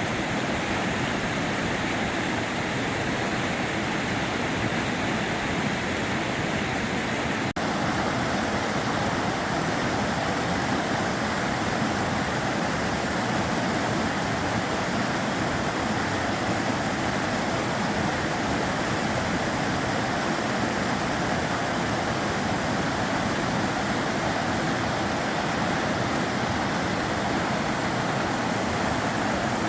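The Sava River flowing, a steady rush of water, with a brief dropout and click about seven and a half seconds in.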